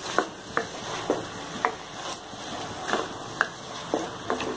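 A spatula stirring chicken pieces around a non-stick pan, scraping and knocking about twice a second over a faint sizzle of the masala, which has cooked down nearly dry.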